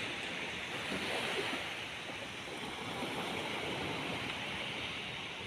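Sea waves washing onto a beach, a steady rush of surf.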